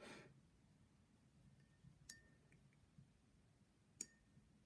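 Two faint clinks about two seconds apart, each with a short ring: a paintbrush tapped against a rinse-water jar between colours. There is a brief soft swish at the very start.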